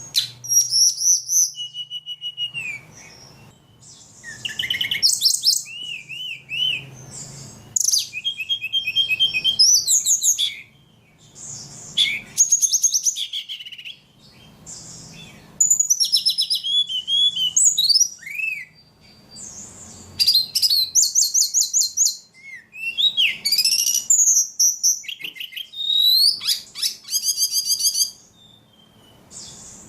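A caged ledekan songbird singing in a run of varied phrases: rapid high trills, clear whistled notes and quick chirp series in bursts of one to three seconds, with short pauses between them.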